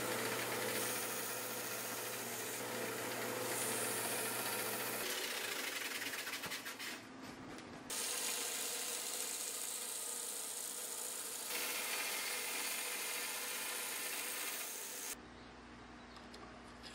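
Small vertical belt grinder running with a metal knife-handle spacer pressed flat against the belt: a steady sanding hiss over the motor's hum, rougher and uneven for a few seconds in the middle. The grinding stops a couple of seconds before the end.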